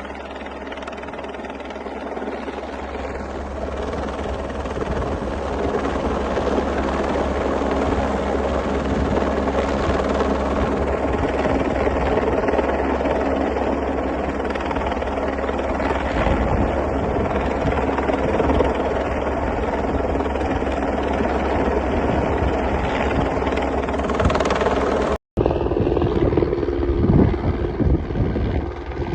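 Helicopter hovering on a long line, its rotor and engine running steadily. The sound cuts out abruptly for an instant about 25 seconds in.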